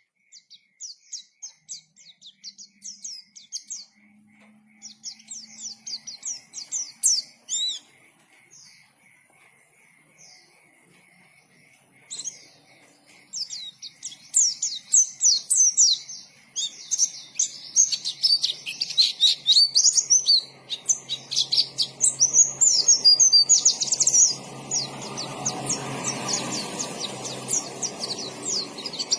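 White-eye (pleci) singing a fast, jumbled twittering song of rapid high chirps, thinning out for a few seconds before picking up again. A hiss rises underneath near the end.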